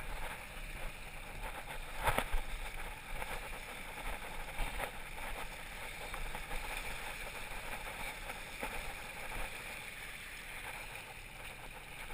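Sea water rushing and splashing along the side of a prawn trawler under way, over a steady low hum. A few short knocks sound about two seconds in.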